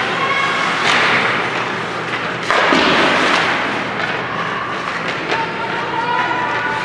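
Ice hockey game in an arena: steady rink and crowd noise with spectators' shouts, and one loud thud about two and a half seconds in.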